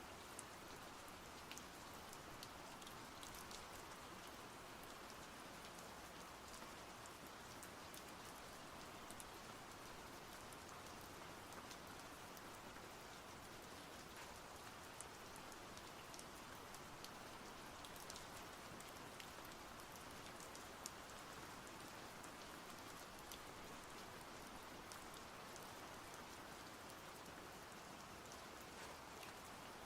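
Faint, steady rain: an even hiss with many small drop ticks scattered through it.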